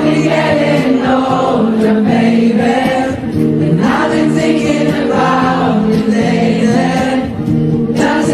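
Music with a chorus of voices singing together, holding long notes that bend from one pitch to the next.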